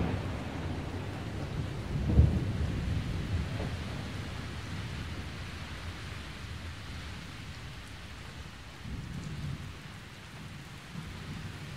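Steady rain with low rolls of thunder, the loudest about two seconds in and smaller ones near the end.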